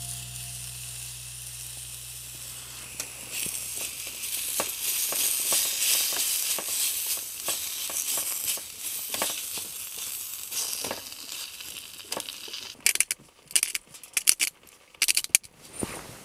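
Food sizzling and crackling as it fries in a pan, a steady hiss with many small pops that swells a few seconds in and dies down later. Near the end, a run of short, loud rustling bursts.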